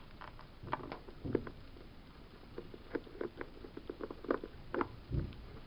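Scattered light taps and clicks of small plastic toy figures being handled, with a dull thump about five seconds in.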